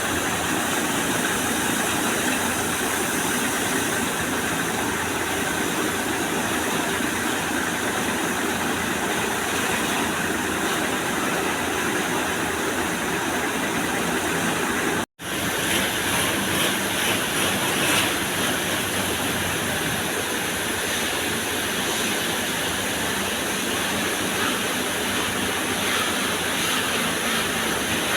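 Steady, even rushing noise inside a broiler chicken house, broken by a sudden brief dropout about halfway through.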